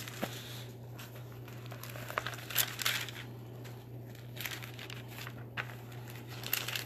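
Paper pages being leafed through, with crinkling rustles and small clicks in short irregular bits, over a steady low electrical hum.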